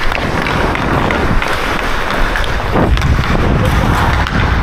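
Hockey skate blades striding and scraping on the ice, with wind buffeting the microphone of a helmet-mounted action camera and a few faint clicks of sticks on the ice.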